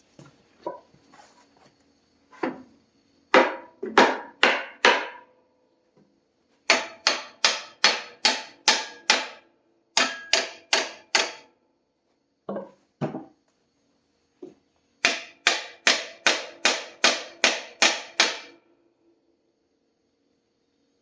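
Hammer blows struck in quick runs of about two a second, with short pauses between the runs; each blow rings briefly.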